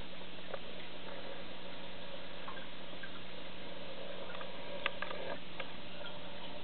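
Aquarium equipment running: a steady low hum under a continuous water-like hiss, with a few faint ticks, the loudest about five seconds in.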